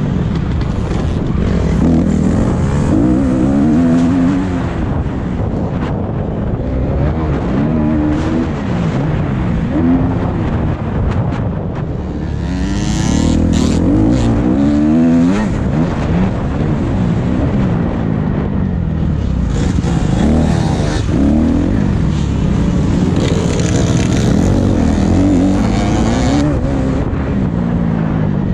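Motocross bike engine revving up and down over and over as it is ridden around a dirt track, its pitch rising and falling with each throttle opening and gear change. A high rushing hiss comes and goes along with it.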